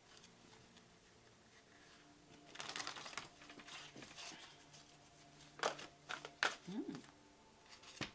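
Oracle cards being handled: a brief rustle of cards sliding, then a few sharp taps as cards are laid down.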